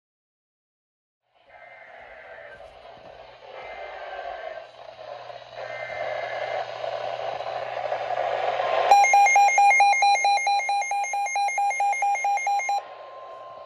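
Weather radio receiving an Emergency Alert System warning through static hiss: three faint one-second data bursts of the EAS header, then a steady warning tone starts about nine seconds in. Together with that tone, a loud pulsing, warbling alarm beeps for about four seconds and then stops, leaving the steady tone over the static.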